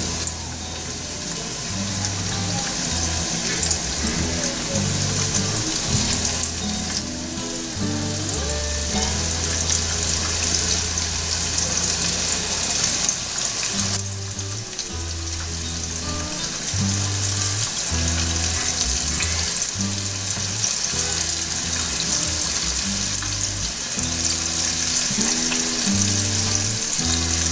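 Hot oil sizzling and bubbling as small pieces of alligator meat deep-fry in a pan, with background music and its low bass notes under it.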